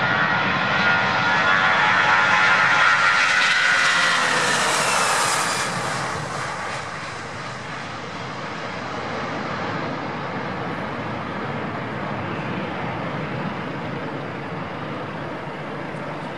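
Four-engine Airbus A340 airliner taking off at full power. The jet roar carries a whining, buzzing tone that is loudest about two to three seconds in as the plane passes, and that tone drops in pitch. The sound then settles to a steady, lower roar as the plane climbs away.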